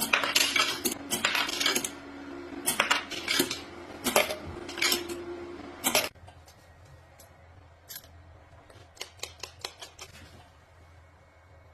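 Brass rifle cartridge cases clattering and clinking against each other over a steady hum, which cuts off suddenly about six seconds in. After that come a few scattered light clicks.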